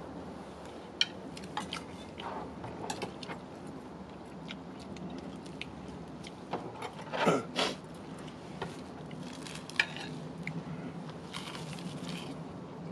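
Cutlery tapping and clinking against dishes and bowls during a meal, in scattered short clicks. About seven seconds in there is a louder clatter, one part sliding down in pitch.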